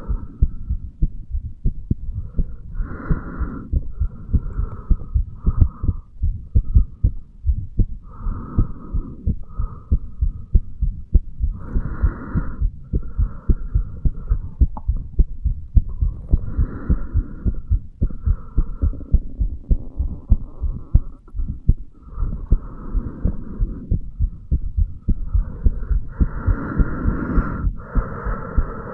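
Human heartbeat heard through a chest pickup at the mitral valve area: regular, evenly paced low thumps, with a hiss that swells and fades every second or two over the beats.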